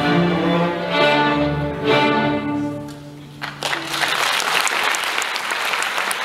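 Student string orchestra of violins and cellos playing its final sustained chords, which die away about three seconds in. Audience applause breaks out about half a second later and carries on.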